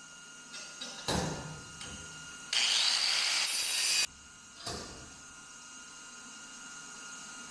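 Slide-hammer dent pulling on a car body panel: a sharp knock about a second in and another a little under four seconds later, and between them a loud, harsh hissing burst from the tack welder or grinder lasting about a second and a half that cuts off suddenly.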